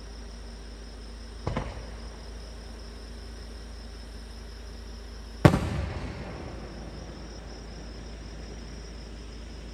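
Two fireworks shells bursting about four seconds apart, the second louder and followed by an echoing rumble. A steady high insect trill runs under them.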